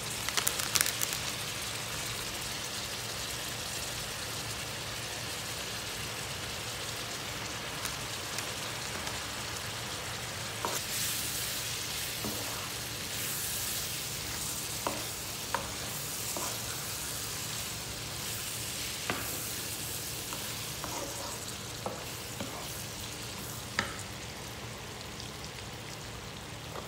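Sliced meat sizzling as it sautés in a nonstick pan, with a wooden spatula stirring it and giving a few short knocks against the pan.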